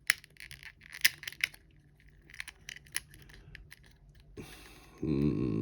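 Small sharp clicks and taps of metal tweezers against the doll's plastic talking mechanism and O-ring, scattered over the first three seconds. Near the end a louder low voiced murmur, like a hum of effort, begins.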